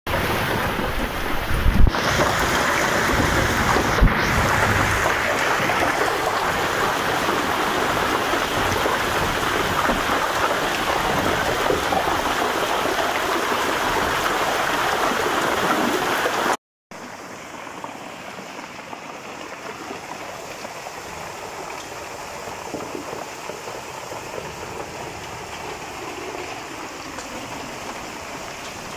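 Heavy rain and muddy floodwater rushing through a street, a steady hiss of noise, with two sharp thumps in the first few seconds. The sound drops abruptly to a quieter level about two-thirds of the way through, with the same steady water noise continuing.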